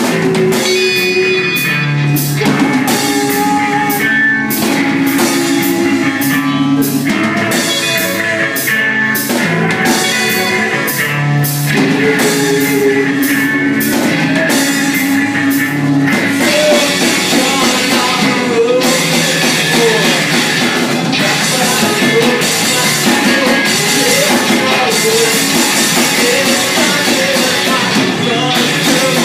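A live rock band playing electric bass, electric guitar and drum kit, with a male voice singing into a handheld microphone. About halfway through, the band gets denser and brighter, with more cymbal.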